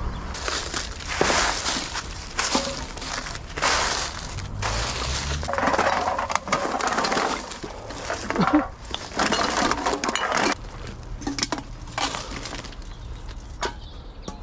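Irregular crunching and rustling, with a few sharp clicks: plastic, cans and bottles of litter and dead leaves being handled among the undergrowth.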